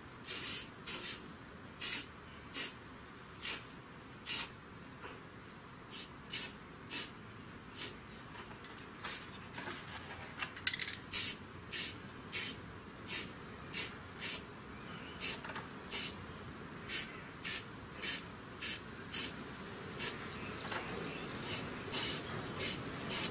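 Aerosol can of spray paint being sprayed in many short bursts, each a brief hiss, about one or two a second with short gaps between.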